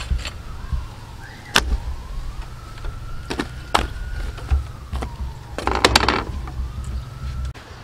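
Cleaver chopping into a cow's head: a few separate sharp blows, then a quick flurry of strikes about six seconds in. Underneath, a steady low rumble and a faint whine that slowly rises and falls in pitch.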